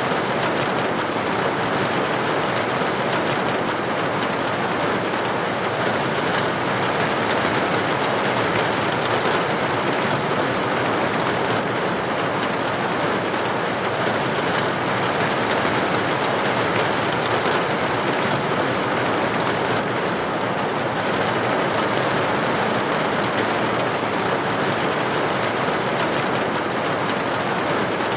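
Steady rain pattering on window glass, an even hiss with no single drops or breaks standing out.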